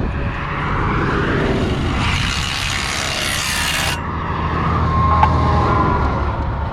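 Steady vehicle rumble, engine and road noise, with a hiss that cuts off suddenly about four seconds in.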